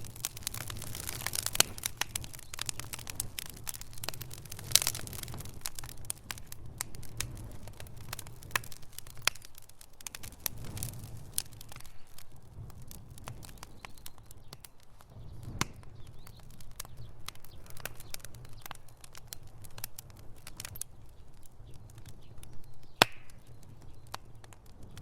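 Fire crackling in a fireplace: irregular crackles and pops over a low rumble of flame, busier in the first few seconds and sparser after, with a few sharper pops, the loudest near the end.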